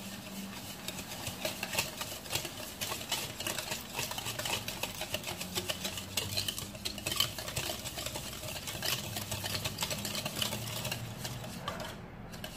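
Wire whisk beating eggs and sugar in a mixing bowl: a rapid, steady clicking and rattling of the wires against the bowl, stopping about a second before the end.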